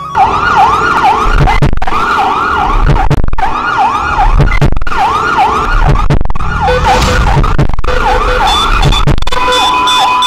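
An ambulance-style siren wailing up and down in quick sweeps over a low thumping beat, cut off briefly about every second and a half. A steady high tone joins near the end.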